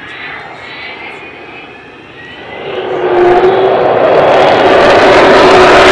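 Avro Vulcan bomber's four Olympus jet engines passing overhead in a banking turn: a faint rising whine at first, then about three seconds in the jet noise swells sharply to a loud, steady rush with a held droning tone.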